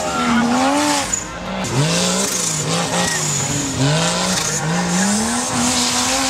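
Off-road competition vehicle's engine revving up and down again and again as the throttle is worked, over a steady noisy rush.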